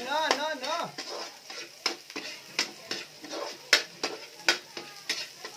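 Metal spatula stirring garlic and onion frying in oil in a wok, with repeated sharp clacks of the spatula against the pan over a steady sizzle. A short pitched, voice-like sound comes in the first second.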